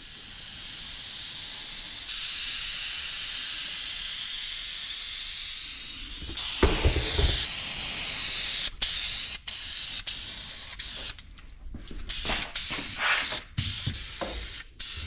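Aerosol can of green self-etching primer spraying: a steady hiss for about six seconds, then louder, then a run of short spray bursts with brief gaps.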